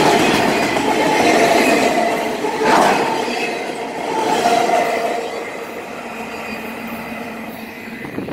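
Freight train cars rolling past close by, steel wheels rumbling on the rails with a steady squeal and a louder clank about three seconds in. The sound fades away as the last car passes near the end.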